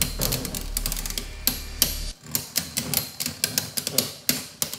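Two Beyblade Burst spinning tops, one of them Zest Achilles, clashing again and again in a plastic stadium: rapid, irregular plastic clacks as the tops strike each other and the stadium wall.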